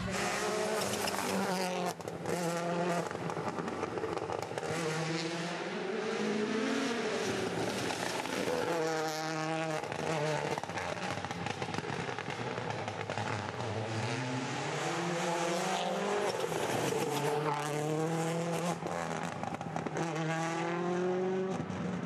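Rally car engine revving hard at racing speed, its pitch climbing and dropping again and again through gear changes and braking for corners.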